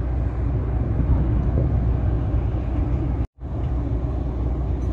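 Steady low rumble of a red electric freight locomotive standing on the line, heard outdoors. The sound drops out for a moment about three seconds in, then carries on the same.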